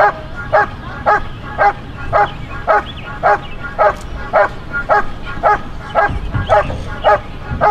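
German Shepherd barking steadily and rhythmically, about two barks a second, at a helper holding a bite sleeve: guarding the decoy with continuous barks instead of biting.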